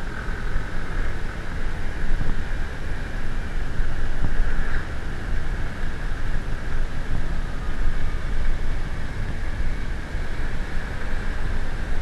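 Steady road and engine noise of a moving vehicle on the road, with wind rushing over the microphone.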